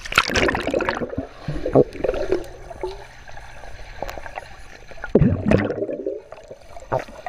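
Water sounds picked up by a waterproof action camera as it goes under in a swimming pool: a loud splash near the start, then muffled underwater water noise, with another loud surge of water about five seconds in.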